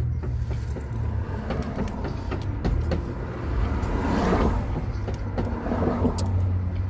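Low, steady rumble of a motor vehicle engine in street traffic, with faint background voices and small clicks.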